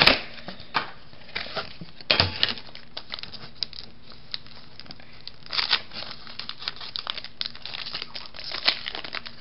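Foil booster pack wrapper crinkling and crackling in the hands, in scattered short bursts, as it is handled, with a sharp crackle right at the start.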